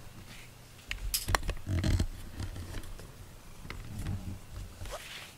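Close rustling, clicks and low knocks as a cat brushes against the camera, loudest in a cluster of knocks between about one and two seconds in, with a few more near four seconds.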